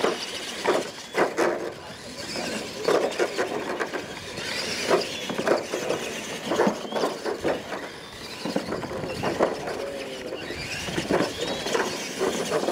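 Two radio-controlled monster trucks racing across a dirt track with ramps. Their motors and drivetrains whine and squeal, with repeated irregular knocks and clatter as the trucks bounce over the jumps.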